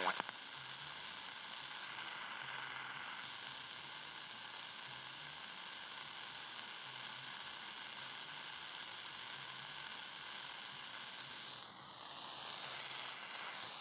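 Shortwave receiver hiss: steady static from the radio tuned to the 20-metre amateur band with no station talking. Near the end a faint tone slides down in pitch.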